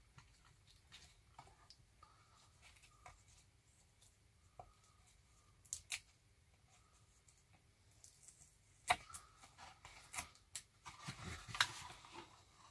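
Faint handling noise from the cardboard case and wiring of a Google AIY Voice Kit being worked by hand and folded: scattered light ticks, a pair of sharp clicks about six seconds in, a louder click about nine seconds in, then rustling.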